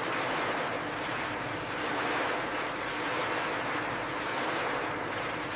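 Steady rushing and churning of water in a poultry screw chiller, with a faint machine hum underneath.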